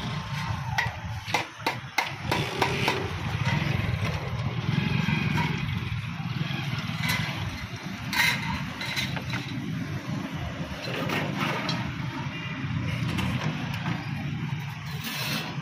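Steady low rumble of motor traffic or a running engine, with scattered sharp clicks and taps of hand tools on metal.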